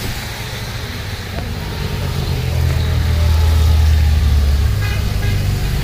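Motorcycles riding past on a wet road: a low engine hum grows louder to a peak about four seconds in, then holds, over a steady hiss of tyres on wet tarmac.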